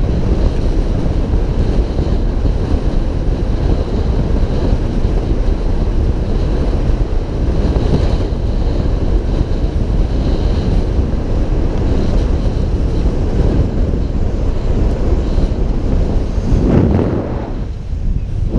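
Heavy wind buffeting the microphone of a camera held out on a pole above a moving open-roof safari vehicle, a steady dense rumble that swells and dips briefly near the end.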